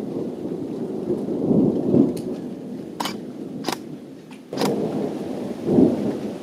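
Thunder rumbling, swelling and fading, over falling rain, with a few sharp clicks and an abrupt jump in the sound about two-thirds of the way through.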